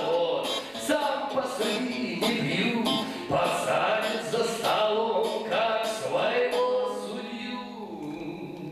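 A man singing to his own acoustic guitar, with the voice easing off near the end.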